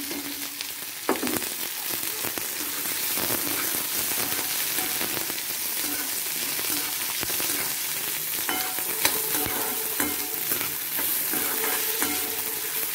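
Chopped onions and curry leaves sizzling in hot oil in a kadai, a steady frying hiss, as a spoon stirs them with a few knocks against the pan.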